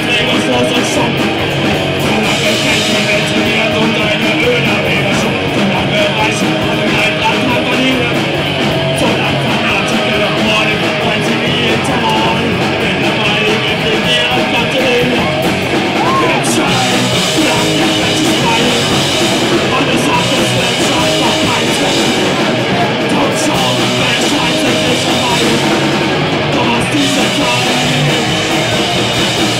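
Live rock band playing loud and without a break: electric guitars and drums, with a singer at the microphone.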